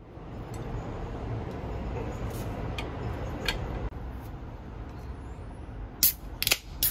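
Aluminium beer cans being opened near the end: several sharp cracks from the pull tabs in quick succession. Under them runs a steady low background rumble.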